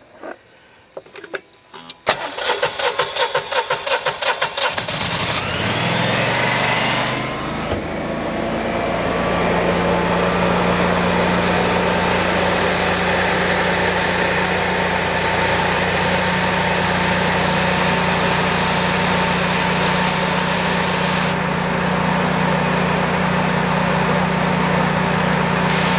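17 kW Honeywell standby generator starting cold at −24 °C, with its block heater and battery blanket in use. A few clicks are followed by about three seconds of pulsing starter cranking. About five seconds in the engine catches, revs up and within a couple of seconds settles into a steady run.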